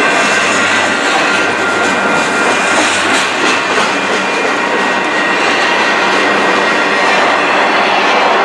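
Empty freight flatcars rolling past at close range: a steady, loud rumble and clatter of steel wheels on the rails, with a faint high whine held over it.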